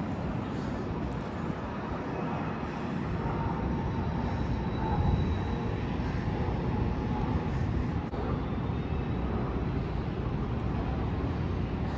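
Steady low rumble of city ambience: distant traffic and machinery hum, with no distinct events standing out.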